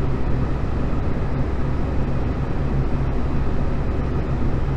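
Steady low rumble and hum of machinery in a large engine workshop, running without a break.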